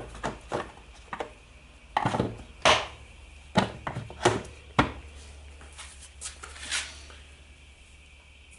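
Irregular knocks and metallic clinks of hand tools and drill parts being handled and set down on a workbench, about a dozen sharp hits with a few louder ones in the first five seconds, over a low steady hum.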